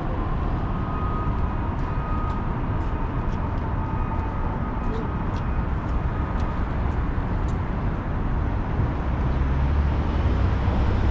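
Steady city street noise of passing traffic, the low rumble growing heavier near the end.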